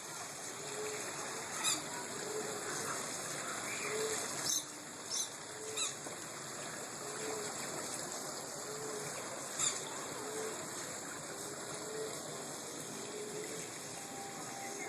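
Water trickling steadily in a bird aviary. A low note repeats about once a second, and a few brief, sharp high chirps come from the birds.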